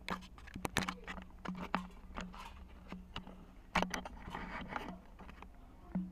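A run of irregular sharp clicks and knocks, the loudest a little under four seconds in, over a low hum: handling noise from hands and gear at the pipe connections.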